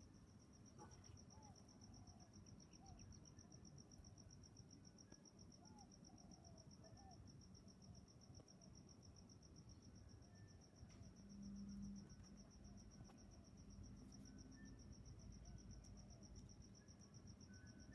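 Faint, steady, high-pitched insect trill, evenly pulsing throughout, with faint short chirps in the first half. A brief low hum rises about two-thirds of the way through.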